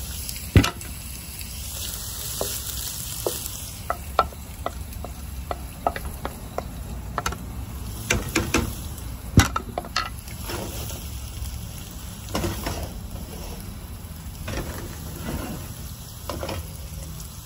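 Chopped onion sizzling in hot oil in a frying pan, loudest in the first few seconds after it goes in, then settling to a steady frying hiss. Sharp clicks and knocks of a spoon stirring against the pan run through it.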